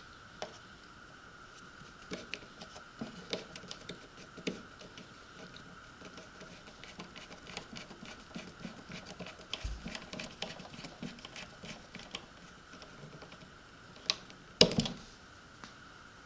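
Small screwdriver turning the screws of an RC jet boat's metal skid plate: a run of light clicks and scratches of the tool tip in the screw heads. There are a couple of louder knocks near the end.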